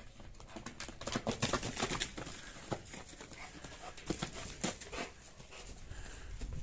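Irregular footsteps rustling and crunching through straw over soft mud, with scattered sharp little clicks, bunched about a second in and again around four seconds in.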